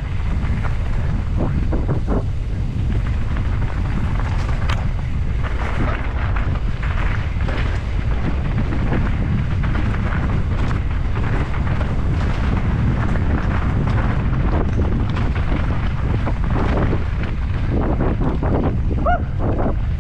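Heavy wind buffeting on a helmet-mounted camera microphone while riding fast down a dirt forest singletrack, mixed with the rumble and rattle of the ride over bumps and roots. A short squeak comes near the end.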